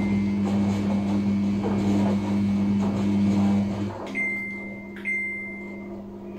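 Samsung front-loading washing machine in its wash cycle: the drum motor hums steadily while the drum tumbles the soapy load, then stops about four seconds in as the drum pauses between turns. During the pause a thin high tone sounds twice.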